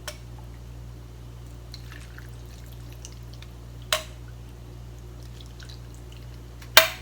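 Udon soup (dashi) being poured into a bowl of noodles and beef: faint pouring and dripping liquid, with three sharp clinks, the loudest near the end, over a steady low hum.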